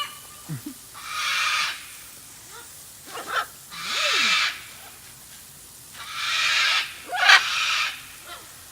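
Hand spray bottle misting water onto a pet parrot, four short hissing squirts, with the parrot giving a few brief low calls in between.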